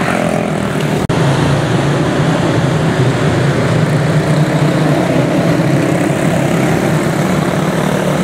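Several quarter midget race cars with single-cylinder Briggs & Stratton Animal engines running together at racing speed, a steady dense buzz. The sound cuts out for an instant about a second in.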